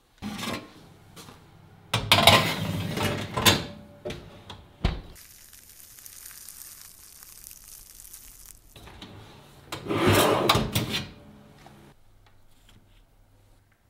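Metal baking tray scraping and clanking as it goes into an oven, a sharp knock of the oven door shutting about five seconds in, then a steady hiss from the running oven before more scraping and clatter as the tray is taken out.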